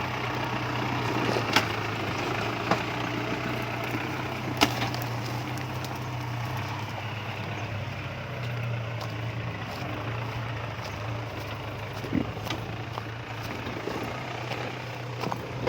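Truck diesel engine (Toyota Dyna 14B) in an off-road Daihatsu Taft running steadily at low revs. A few sharp knocks come through, once or twice early on and again later.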